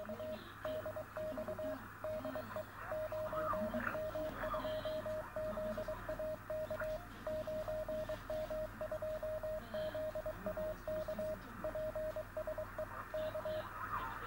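Morse code (CW) from amateur station 9M2ZAK on the 10-metre band, heard on an online shortwave receiver: a single mid-pitched tone keyed on and off in dots and dashes over steady band hiss. The keying stops shortly before the end.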